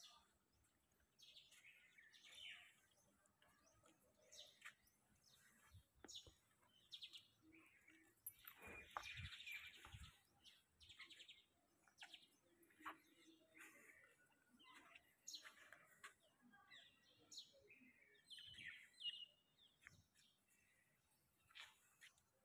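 Faint chirping of small birds: many short, high calls scattered throughout. About nine to ten seconds in there is a louder scuffing noise with two low thumps.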